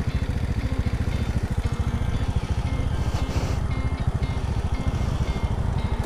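Honda Scoopy scooter's small single-cylinder engine running on the move, heard as a steady, rapidly pulsing low rumble mixed with wind noise on the microphone.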